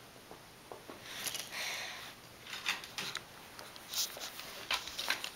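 A rustle about a second in, then light, irregular clicks and scratches of a corgi's claws on a hardwood floor as it moves about with a plush toy.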